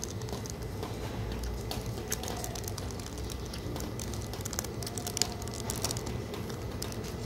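Thin clear plastic sushi wrapping crinkling and crackling in short scattered clicks as a piece of egg nigiri is worked free of it with chopsticks, over a steady low background rumble.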